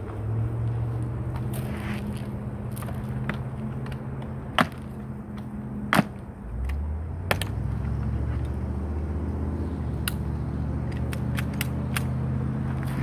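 Sharp clicks from an air gun being handled and loaded, three loud ones a second or so apart and fainter ticks after, over a steady low machine hum that drops in pitch a little past halfway.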